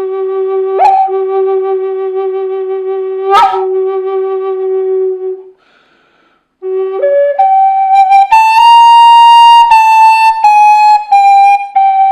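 Native American style flute in G4, of figured maple, played dry without added reverb. A long low note with a slight waver is broken twice by quick upward flicks. After a breath pause about halfway, the melody climbs to a held high note and steps back down.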